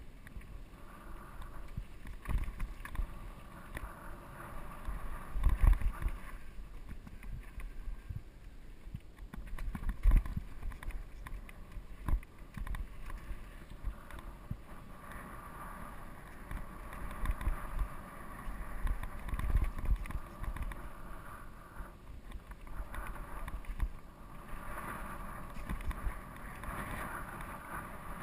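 GT Peace 9'r steel hardtail mountain bike rolling over a rough dirt trail, tyres on dirt and loose rock, with sharp knocks as it hits bumps, the hardest about 5 and 10 seconds in. Wind rumbles on the microphone throughout.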